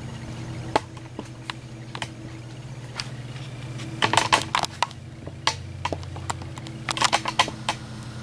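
Scattered sharp clicks and knocks, in a cluster about four seconds in and another about seven seconds in, over a steady low hum.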